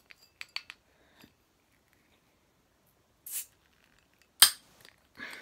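A cigarette lighter being wedged against the cap of a glass beer bottle to lever it off: a few light clicks and taps, a short hiss a little past the middle, then one sharp crack about four seconds in, the loudest sound.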